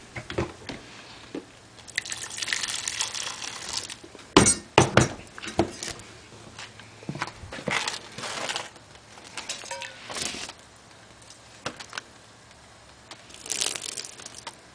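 Boiling water thrown out into −40° air a little at a time, several splashing hisses that the uploader hears as the water freezing. Two sharp clicks come about four and a half seconds in.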